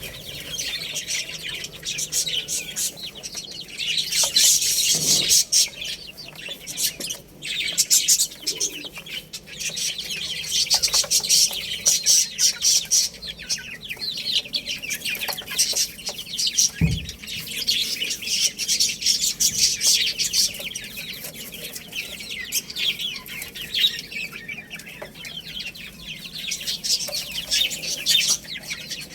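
A group of baby chicks chirping nonstop: many short, high peeps overlapping in a dense, busy chorus.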